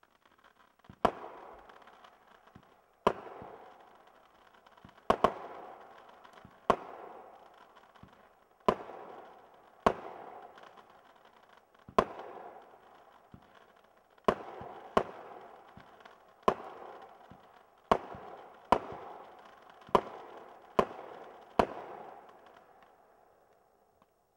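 Falcon Rising consumer firework cake firing shot after shot: about sixteen sharp bangs, one to two seconds apart, each trailing off in crackle before the next.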